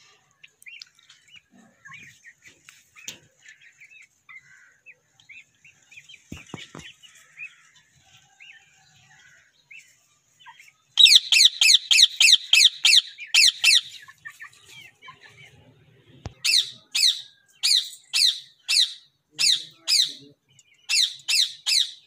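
Indian ringneck parakeet calling: faint scattered chirps at first, then about halfway a loud run of rapid repeated calls, about five a second for three seconds. After a short pause comes a slower series of loud calls about two a second.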